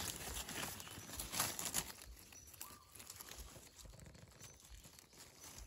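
Dry leaf litter rustling and crackling as gloved hands and a knife dig a wild mushroom out of the forest floor, with many small irregular clicks.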